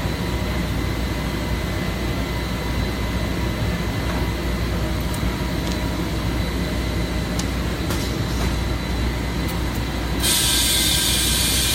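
Steady drone of running shop machinery with faint steady tones. About ten seconds in, a loud hiss of escaping air starts and lasts about two seconds.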